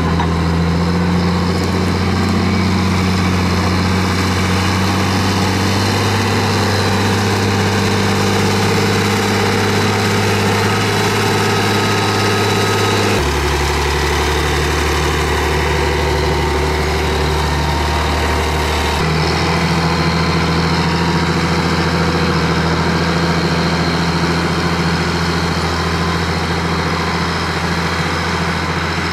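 The HSM 904 skidder's 6.7-litre, 150 hp diesel engine running steadily. Its pitch steps to a new level twice, about halfway through and again a few seconds later.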